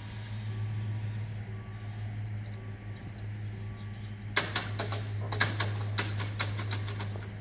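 Railway level crossing closing: a steady low hum from the barrier drives under repeating electronic warning beeps. From about four seconds in comes an irregular run of sharp metallic clattering as the lowered barriers settle while the exit barriers start down.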